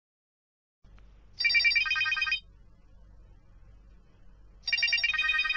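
Mobile phone ringtone playing twice, each time a burst of about a second of quick, bright electronic notes.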